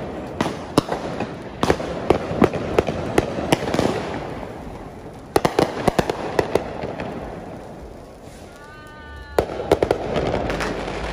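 Fireworks going off: many sharp bangs and crackles from aerial fireworks and firecrackers, in dense clusters with a short lull partway through. Near the end a brief pitched tone lasts about a second before another cluster of bangs.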